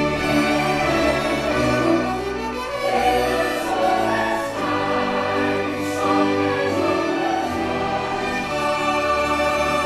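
Stage-musical orchestral score with a choir singing sustained chords, playing continuously from the show's pre-recorded soundtrack over the theatre's loudspeakers.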